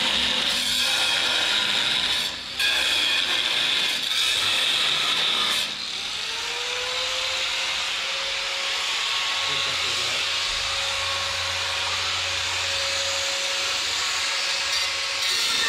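Power cutting tool cutting out steel bolts from a truck's flatbed frame: a steady harsh hiss that breaks off briefly twice in the first few seconds, then runs on with a faint tone that rises and holds.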